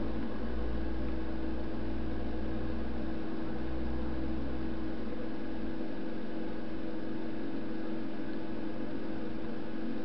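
Steady background hum and hiss, with a low rumble that drops away about halfway through.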